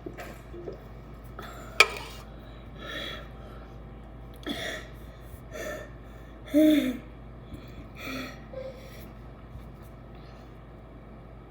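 A person gasping for breath between gulps of sparkling water: several breathy gasps a second or so apart, the loudest with a short voiced 'ah' about two-thirds of the way through. There is a single sharp click about two seconds in.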